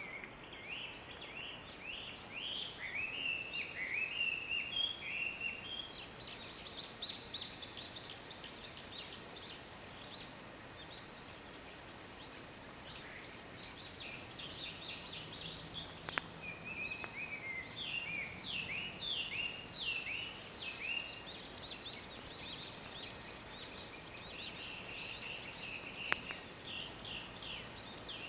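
Several wild birds calling and singing together in dense woodland, with many short sweeping calls in busy clusters over a steady high hiss. Two brief sharp clicks are heard about midway and near the end.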